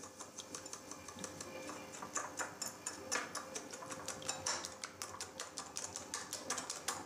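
Stainless wire whisk beating eggs and sugar in a glass bowl: a rapid, uneven run of light clicks as the wires strike the glass.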